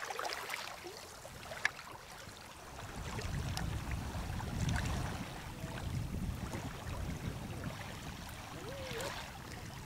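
Small waves lapping on the shore, with a low rumble that swells about three seconds in and then eases off.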